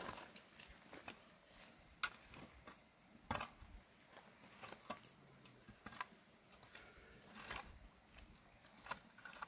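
Quiet, irregular scrapes and knocks of a long-handled spade digging into dry, stony earth, each a short sharp stroke a second or two apart, with soil being shaken through a round hand sieve.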